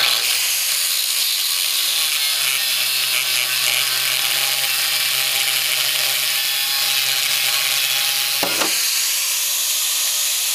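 A pneumatic cutoff tool's small abrasive wheel cuts through a steel barrel hoop, making a steady, high-pitched grinding hiss. It starts suddenly and breaks off briefly about eight and a half seconds in before carrying on.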